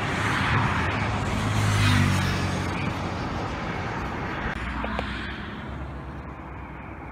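Container freight train's wagons rolling away along the track, the wheel-on-rail noise fading as the end of the train passes. A low engine hum swells and falls about two seconds in.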